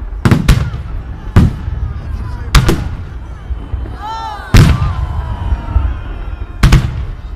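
Fireworks display: aerial shells bursting overhead, about eight sharp booms in irregular succession, several coming in quick pairs, each with a short echoing tail.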